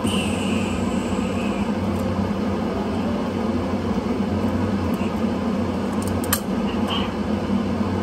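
Steady low hum of a running appliance motor, with a sharp click about six seconds in.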